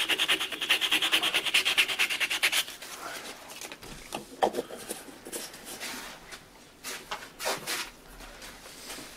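Hand sanding with abrasive paste on the end of a wooden padouk hammer handle, set in a ball peen hammer head: quick, regular back-and-forth rubbing strokes that stop about two and a half seconds in. Quieter scattered knocks and clicks follow.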